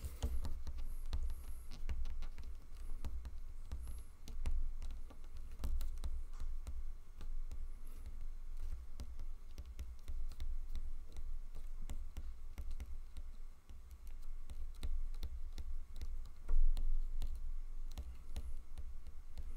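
Typing on a computer keyboard: quick, irregular key clicks throughout, over a steady low hum.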